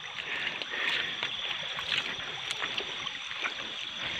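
Shallow river water running over rocks, with a few short splashes or knocks as someone wades through it.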